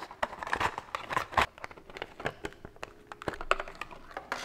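Cardboard box packaging with a clear plastic window being opened and a hard plastic AirPods case slid out by hand: crinkling plastic with small clicks and taps, busiest in the first second and a half, then sparser, with a louder rustle at the very end.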